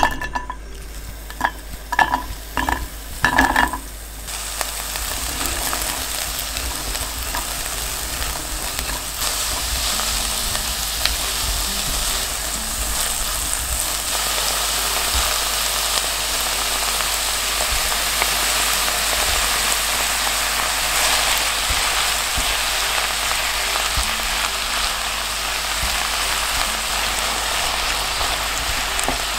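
A few ringing knocks in the first seconds as chopped onions go into a hot oiled pot, then steady sizzling as the onions stir-fry. Diced pork is later added and frying with them.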